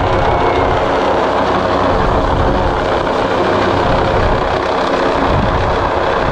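Helicopter hovering close overhead during a hoist lift: its rotor and turbine running loud and steady, with a low rumble beneath a hum of even tones.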